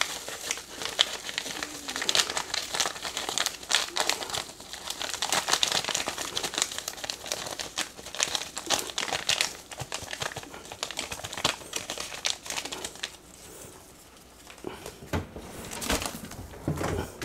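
A paper chili seasoning packet crinkling as it is shaken and tapped to empty the powder into a slow cooker. The crinkling thins out about thirteen seconds in, with a few more sharp clicks near the end.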